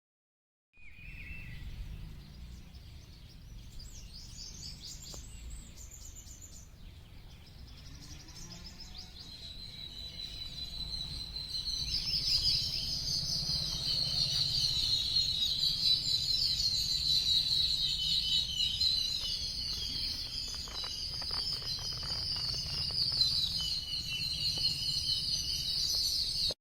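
Wild birds chirping: a few scattered calls at first, then from about nine seconds in a dense, continuous chorus of high chirps that grows louder, over a steady low rumble.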